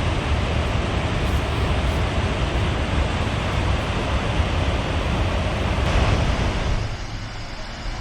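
Steady rushing noise of a large waterfall's falling water, with a deep low rumble; it drops abruptly to a quieter level about seven seconds in.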